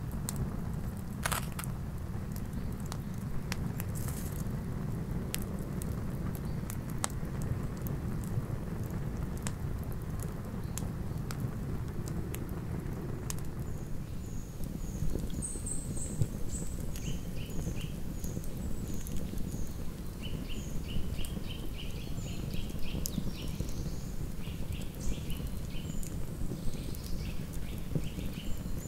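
Campfire burning: scattered sharp crackles and snaps over a low steady rumble. From about halfway through, a bird calls over it with short high notes repeated several times a second.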